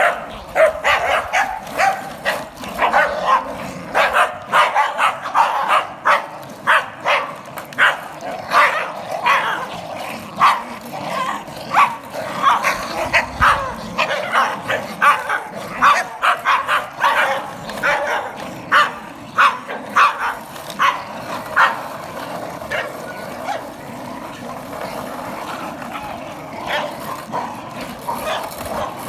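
A pack of small terriers, Scottish terriers among them, yapping and barking in quick, overlapping barks that come thick and fast, then thin out over the last several seconds.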